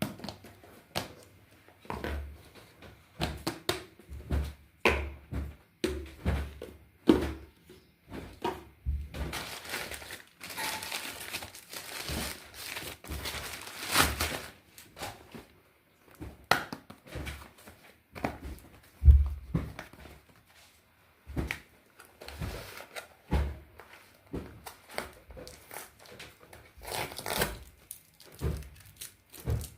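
Packaging being handled and opened: wrapping crinkling and tearing for a few seconds partway through, amid many separate knocks and thuds as the box and its contents are moved and set down.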